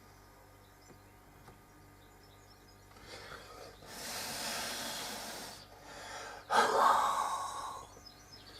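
A person breathing out hard onto freshly applied superglue, twice: a long airy blow, then a louder huff. Breath helps the superglue set.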